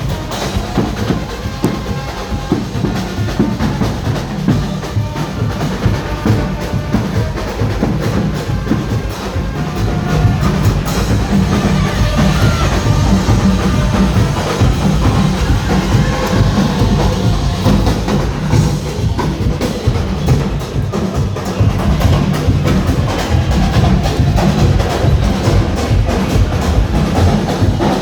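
Carnival street band playing loud drum-led music: a dense, driving beat of drums and knocking wood-block percussion, growing a little louder about a third of the way through.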